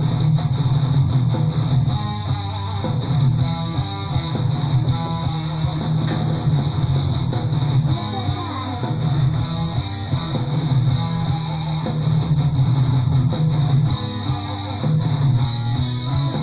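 Melodic power metal recording playing: distorted electric guitars and bass guitar driving a steady, loud full-band passage.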